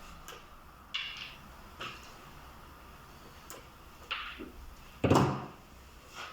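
Handling noises as a cable is worked on: a few short scrapes and clicks, with a louder half-second scrape about five seconds in.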